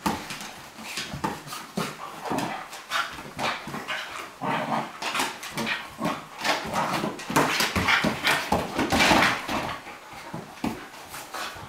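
Two dogs, a Cairn Terrier and a flat-coated retriever, play-fighting: a dense, irregular run of short growls and whines mixed with scuffling on the wooden floor, loudest about eight to nine seconds in.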